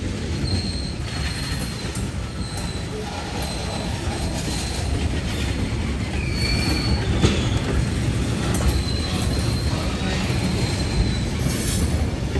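Loaded ethanol tank cars rolling slowly past in reverse. The wheels rumble steadily on the rail, with short high-pitched wheel squeals that come and go and a few sharp clicks in the second half.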